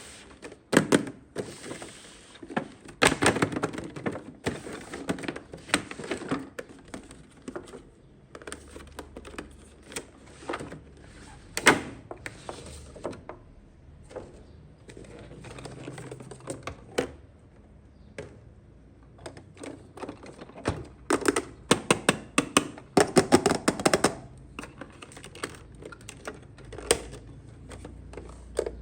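Small plastic toy pieces being unpacked and handled: a run of sharp clicks, taps and light knocks mixed with crinkly rustling of packaging. The clicks come densest about three seconds in, around twelve seconds, and between about twenty-one and twenty-four seconds.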